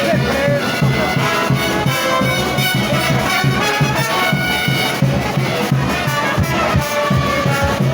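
Frevo music from a brass band: trumpets and trombones playing over a steady drum beat.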